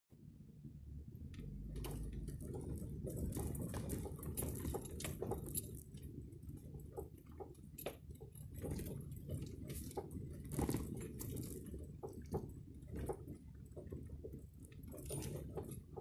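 Low, steady rumble of a vehicle crawling slowly down a rough dirt trail, heard from inside the cab, with frequent sharp clicks, knocks and rattles as the body and loose items jolt over bumps.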